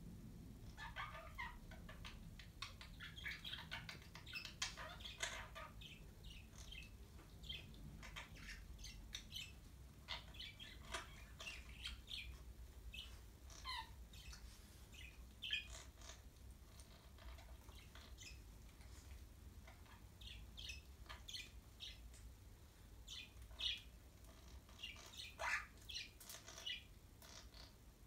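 Soft chirping and chattering from a pet budgie and Quaker parrot (monk parakeet), short high notes coming in quick clusters, faint over a low room hum.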